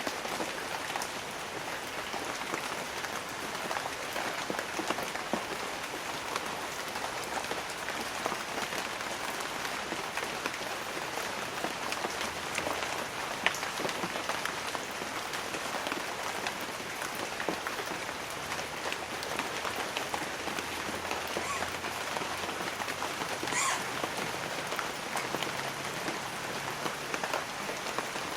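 Light rain falling steadily on banana leaves, a dense scatter of fine drop hits.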